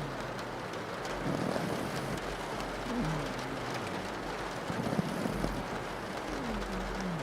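Steady rain pattering on a window, with a pug snoring in slow breaths. Some breaths carry a short pitched note that falls in pitch, about every three seconds.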